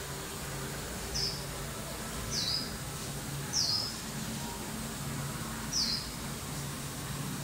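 A small bird chirping four times in the background, each chirp a short, high, quickly falling note, about a second apart at first and then after a longer gap. A low hum runs underneath.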